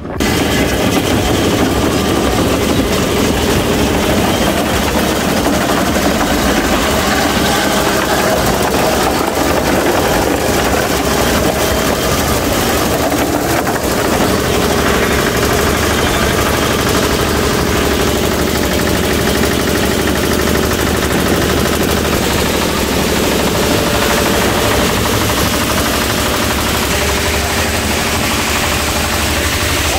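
Ice-crushing machine running loud and steady, breaking slabs of ice and sending the crushed ice down a metal chute into a fishing boat's hold.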